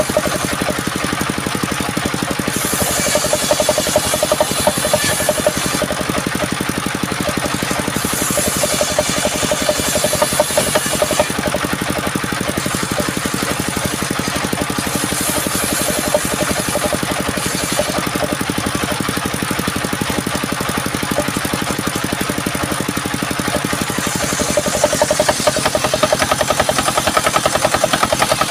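Engine-driven sawmill machine running steadily, with stretches of a few seconds where a higher hiss from the saw comes and goes, several times over.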